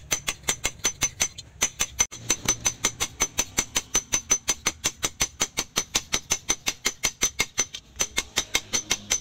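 Hand hammer striking a red-hot sword blade of car leaf-spring steel on a cylindrical steel anvil: fast, even blows at about five a second, each with a high metallic ring, breaking off briefly twice.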